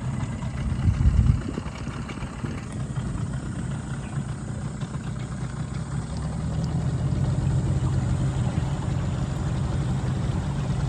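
Boat's outboard motor running at low speed with a steady low hum, getting louder about six seconds in. A brief loud low rumble comes about a second in.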